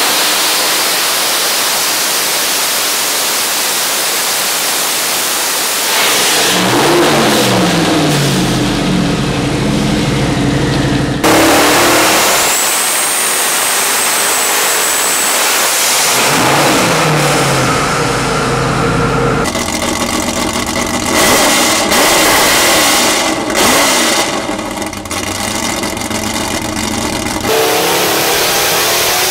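Turbocharged Chevrolet LS V8 race engines running on a test stand, several in turn, each revving up and settling back, with abrupt changes from one engine to the next. A high whistle rises and holds for a few seconds in the middle.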